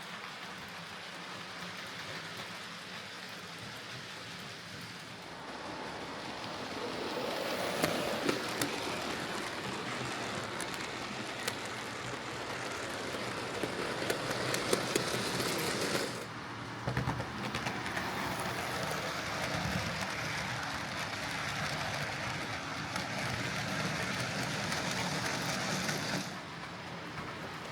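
Hornby Q6 OO gauge model steam locomotive running along the track on its newly fitted replacement motor: a steady rattling rumble of wheels and motor that grows louder about five seconds in, dips briefly midway, and fades near the end.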